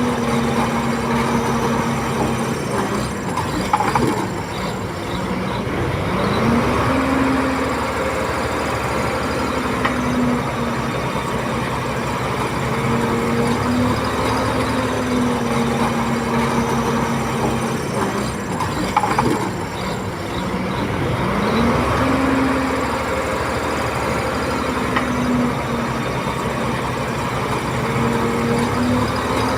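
Komatsu D21P bulldozer's diesel engine working under load. Its note twice drops and climbs back, about fifteen seconds apart, with a clank at each drop.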